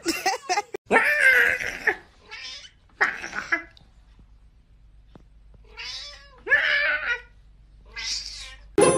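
A domestic cat meowing: a series of about six drawn-out meows with short pauses between them, the first the loudest.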